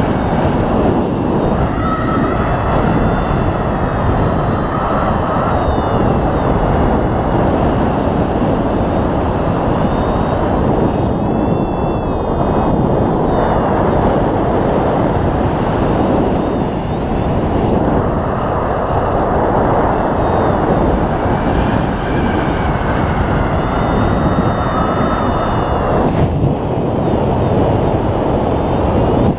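Rushing airflow on the camera microphone of a paraglider in flight, loud and steady, with thin high tones that slowly rise and fall above the rush.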